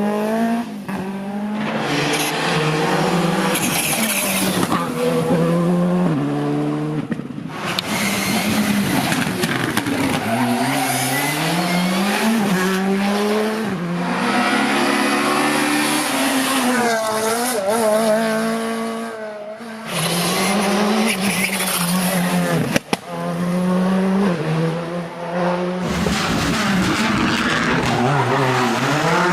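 Rally cars driven hard on a stage: engines revving up and dropping back again and again through gear changes, with tyre squeal and skidding. The sound breaks off abruptly a few times and starts again.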